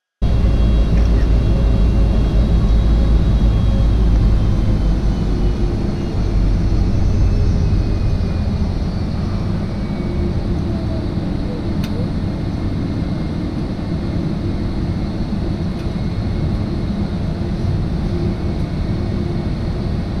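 Steady low vehicle rumble, heaviest for the first several seconds and then easing slightly, with a faint high whine that slowly drops in pitch.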